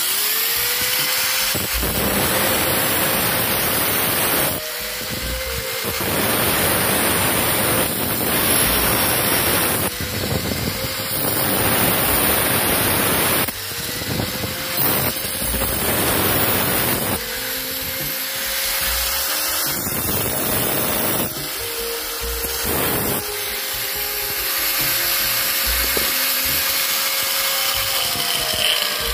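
Angle grinder with a thin cut-off disc cutting slits into a small sheet-metal gutter offcut held in locking pliers. It is switched on several times, each time whining up to speed, with long stretches of harsh grinding noise as the disc bites into the metal.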